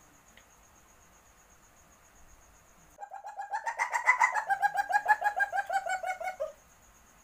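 Civet (musang) calling in heat, a mating call: a rapid run of pulsed calls, about eight a second, starting about three seconds in, rising a little and then falling slowly in pitch for about three and a half seconds before stopping abruptly.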